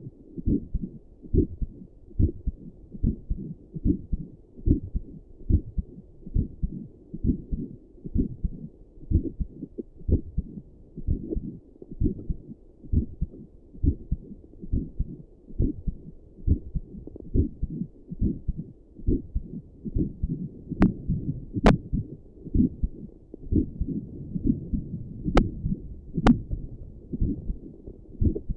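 A person's resting heartbeat picked up through a stethoscope and a doppler together, beating steadily at a little over one beat a second. Two pairs of sharp clicks come about three-quarters of the way through.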